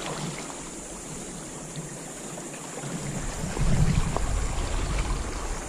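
Sea water washing and lapping against the rocks of a stone jetty, with wind rumbling on the microphone from about three seconds in.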